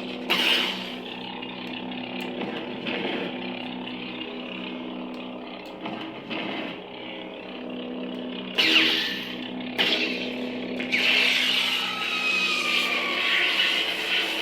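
Lightsaber sound font (Kyberphonic's 'The Stranger' font, modelled on The Acolyte) playing on a saber: a raspy, almost mechanical hum with swing sweeps and sudden clashes near the start and around 9 and 10 seconds in, then from about 11 seconds a sustained crackling lockup.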